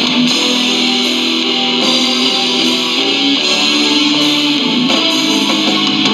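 Recorded metal music with electric guitar holding long sustained notes over a dense, steady wall of sound.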